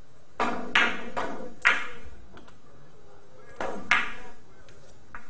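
Billiard balls clicking against each other: a run of sharp knocks, each with a brief ring, in two clusters about three seconds apart.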